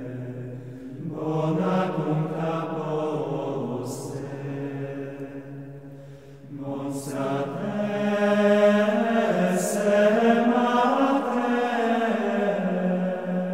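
Low voices chanting in long, held phrases, like sacred chant used as background music. A new phrase begins about a second in and another about six and a half seconds in.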